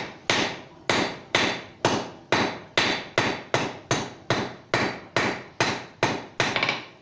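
Hand hammer striking heated 3/8-inch round steel stock on an anvil, forging a scarf on the bar's end. Steady blows about two a second, each ringing briefly as it fades.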